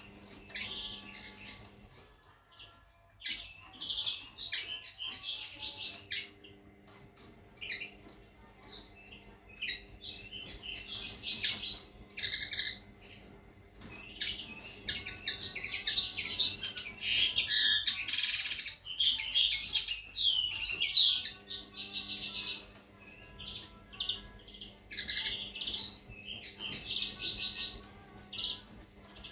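Common linnet singing: a long string of quick twittering and trilling phrases with short pauses between them, loudest past the middle.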